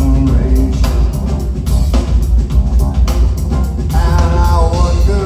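Live rock band playing a song: a drum kit and deep bass run throughout, and a wavering pitched melody line comes in about four seconds in.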